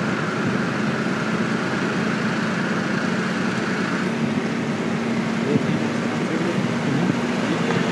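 A car running steadily, with an even rush of road and engine noise and a steady low hum. A thin high tone stops about four seconds in.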